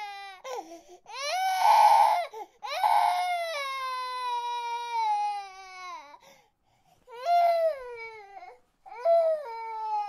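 Baby crying: a run of long, high-pitched wails, each sliding down in pitch at its end, with short breaks between. The loudest wail comes about two seconds in.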